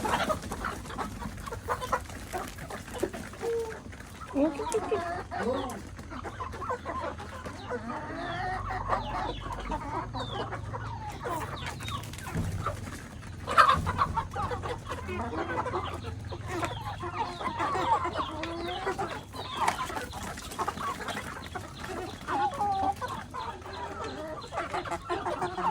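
A flock of chickens clucking at feeding time, many short calls overlapping throughout, with one louder call about thirteen seconds in.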